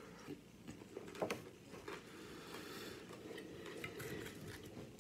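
Faint chewing and crunching of nachos, with a few sharper crunches in the first two seconds.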